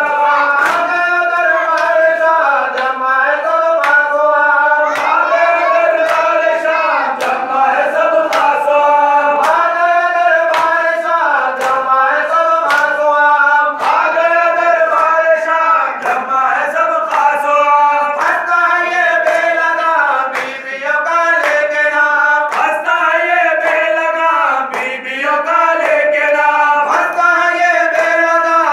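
A group of men chanting a Shia mourning lament in chorus, with sharp rhythmic slaps of hands beating on chests (matam) keeping time under the singing.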